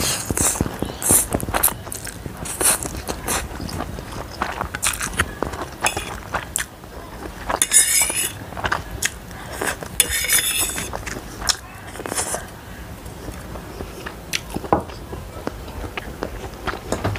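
Close-miked chewing and slurping of stir-fried instant noodles, with fork clicks against the plate and teeth. There are two longer, louder slurps about eight and ten seconds in.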